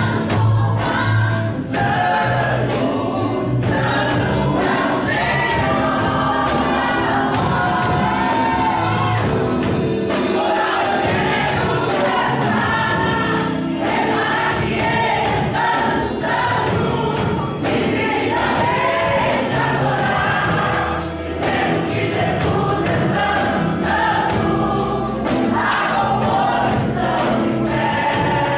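Live gospel song: a woman's voice singing into a microphone with a group of voices, over instrumental backing with a steady beat.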